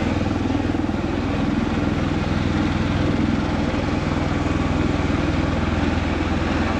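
MV-22 Osprey tiltrotor hovering in helicopter mode: its two proprotors give a steady, deep, rapidly pulsing throb over the whine of its engines.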